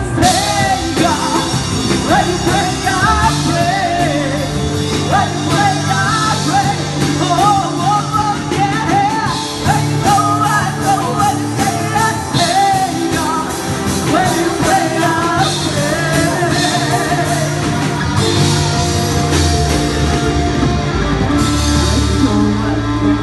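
Live rock band playing: a woman singing a melody over electric and acoustic guitars and drums.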